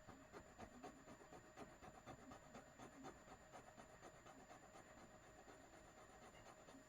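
Faint, rapid light scratching and ticking of a small earring being handled and tested for gold, thinning out after a few seconds.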